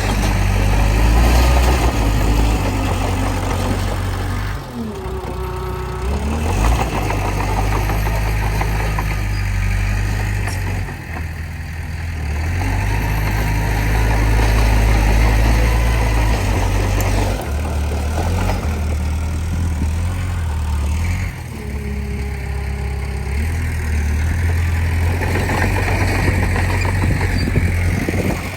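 Komatsu D20P small crawler bulldozer's diesel engine working, its note rising and easing repeatedly as it loads up and lets off, with brief dips about a sixth of the way in, near the middle and about three quarters through.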